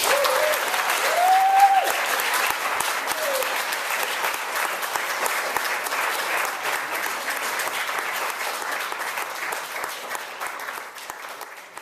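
Audience applauding after a closing speech, with a few brief cheers in the first few seconds; the clapping thins out and dies away near the end.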